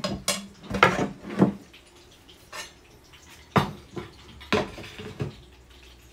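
Metal spoon clinking and scraping against a frying pan while scooping out fried meat, a string of irregular short clinks that thins out after about five seconds.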